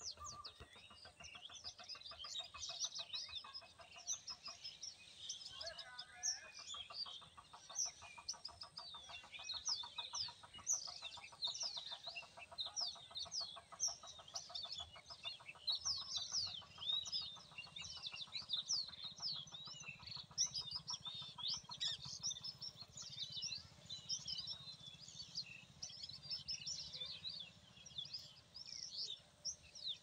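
Many small birds chirping together: a dense chorus of short, high chirps throughout. A fast, even trill runs lower down for several seconds in the first half.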